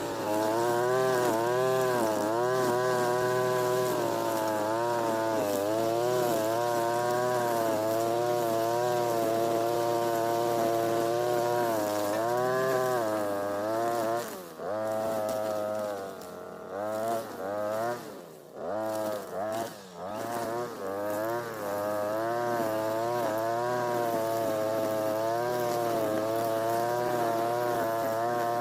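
Two-stroke brush cutter (Europa Hilt EH4326 with a TB43 engine) running at high revs while cutting, its pitch wavering up and down under load. Around the middle it comes off the throttle several times, dropping briefly toward idle before revving back up.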